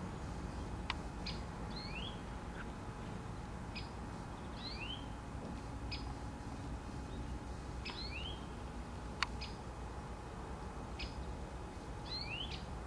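A small bird repeating a short phrase of quick sloping chirps about every three to four seconds, with single short high notes in between, over a steady background hiss. Two sharp clicks, one about a second in and one about nine seconds in.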